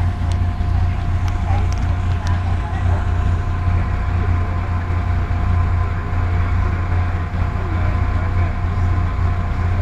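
MAN SL200 bus's diesel engine idling at a steady, even speed, heard from inside the bus: a low drone with a faint steady whine above it.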